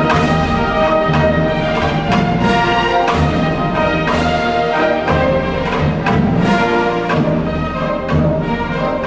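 Background orchestral music with brass, moving at a steady beat.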